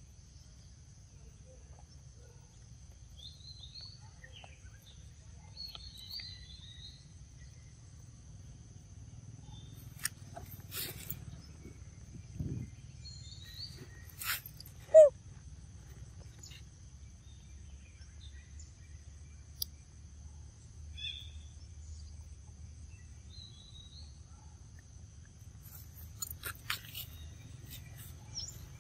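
Macaques biting and chewing ripe mango: scattered wet clicks and crunches, with one louder sharp click about halfway through. Birds chirp now and then over a steady high-pitched insect drone and a low rumble.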